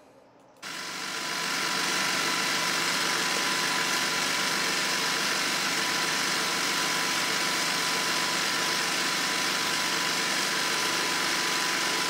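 iRobot Roomba S9+ robot vacuum running its suction in place without moving, a steady machine hiss with a thin constant whine. The sound starts about half a second in and builds over roughly a second to its full level. This is the 'zombie' fault in which the robot vacuums one spot and goes nowhere.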